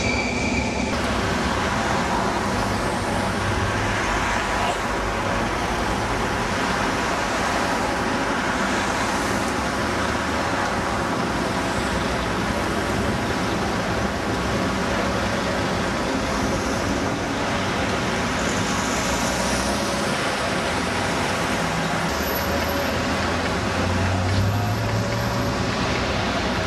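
Steady city street traffic noise, with cars and other road vehicles running past.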